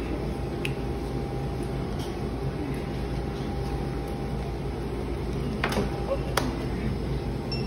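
Steady café room noise: a constant low hum of equipment and ventilation with a faint murmur. Two sharp clicks or knocks about six seconds in.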